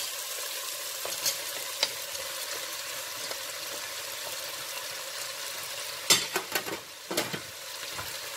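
Chicken masala sizzling steadily in a steel pot as sliced bell peppers are tipped in from a cutting board, with a few sharp clinks and a short clatter against the pot about six to seven seconds in.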